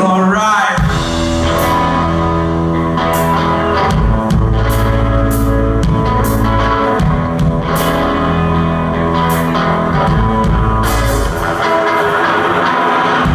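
Live rock band playing an instrumental passage: electric guitars holding sustained, ringing notes over bass and drums, with regular cymbal crashes.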